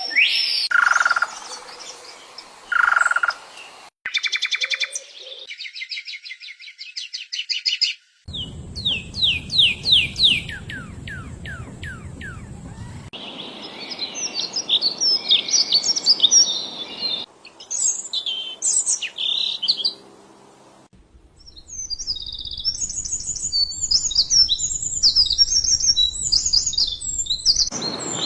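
Songbirds singing and calling in a series of short recordings that switch abruptly every few seconds: slurred calls, a fast trill, a run of quick falling notes, then busy overlapping chirping.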